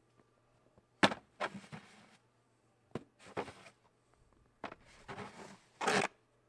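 Snow shovel scooping and pushing fresh snow: about four strokes, each a sharp knock as the blade meets the ground followed by a short scrape through the snow.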